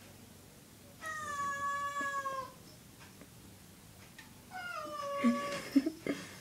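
Tabby cat shut inside a glass shower enclosure giving two long meows, wanting to be let out. The second meow is followed by a few sharp knocks as it paws at the bottom of the glass door.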